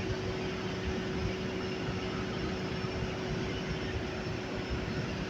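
Skid steer loader's engine running steadily, a continuous mechanical noise with a low hum; the lowest hum tone fades about a second in.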